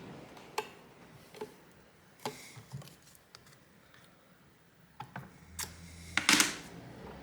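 Scattered clicks and knocks of hands working at a hoverboard's plastic casing and covers, with a louder clatter about six seconds in.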